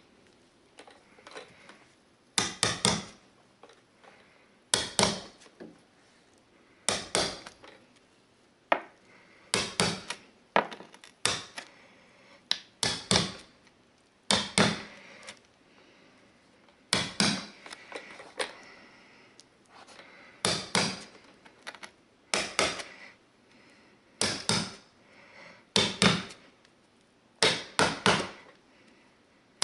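Hammer striking the handle of a wide carpet chisel, driving its blade into the carpet edge where it meets tile. Sharp knocks, usually two or three quick ones together, in groups about every two seconds.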